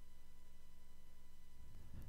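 Quiet room tone with a faint steady electrical hum and no distinct event; a faint low rumble comes in near the end.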